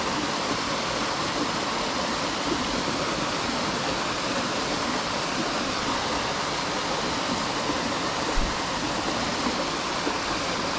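Small mountain-stream waterfall pouring into a pool, a steady even rush of water. One brief low thump about eight seconds in.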